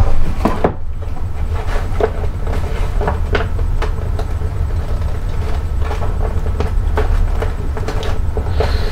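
A cardboard subscription box and its paper packing being handled and opened: scattered taps, clicks and rustles over a steady low hum.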